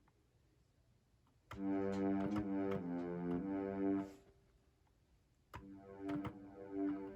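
Akai MPK Mini Play MK3 mini keyboard playing its built-in synth sounds: a phrase of held, layered notes begins about a second and a half in and stops near four seconds, and a second phrase starts about five and a half seconds in.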